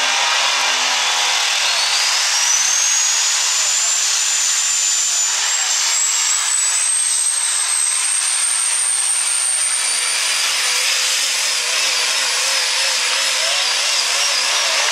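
Super stock diesel 4x4 pulling truck at full power hauling the sled, its engine running loud and dense. From about two seconds in, a high turbocharger whistle climbs steadily in pitch and holds high to the end.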